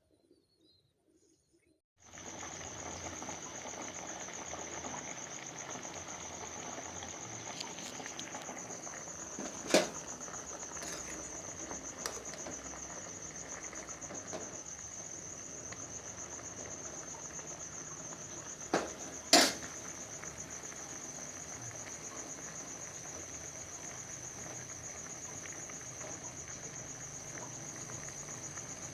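Insects trilling steadily at a high pitch, starting suddenly about two seconds in after near silence. Two short, sharp cracks, the loudest sounds, stand out about ten seconds apart, with a few fainter clicks between them.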